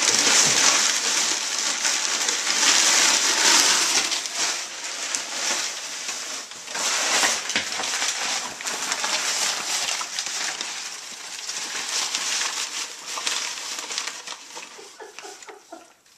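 Crumpled brown kraft packing paper crackling and rustling as a pig roots through it with his snout and drags it. The crackle is loud at first and dies down near the end.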